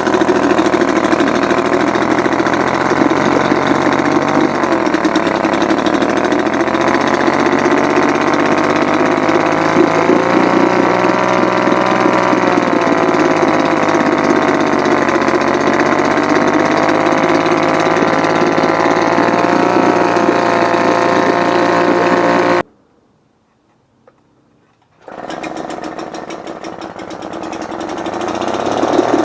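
1976 British Seagull Silver Century long-shaft outboard, a single-cylinder two-stroke, running with a rattling beat, its speed dipping and picking up again now and then. Past the middle the sound cuts out suddenly for about two seconds, then the motor is heard again, quieter and building.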